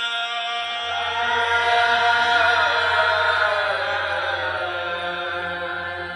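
A man's voice chanting verse in one long held melodic phrase that swells in the middle and falls away toward the end, over a low steady hum that comes in about half a second in.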